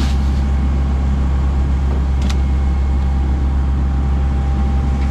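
The fishing boat's engine running steadily under way, a low, even drone, with one sharp click about two seconds in.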